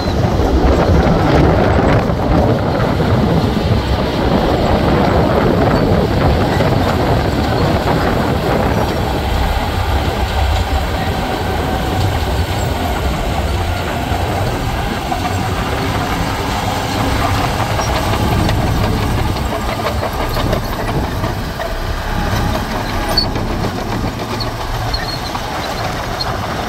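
Komatsu crawler bulldozer working: the diesel engine runs steadily under load while the steel tracks clank and rattle.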